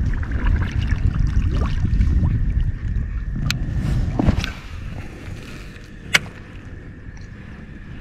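Kayak paddle strokes dipping and splashing, over a low rumble that eases after about four and a half seconds. Two sharp knocks, the louder one about six seconds in.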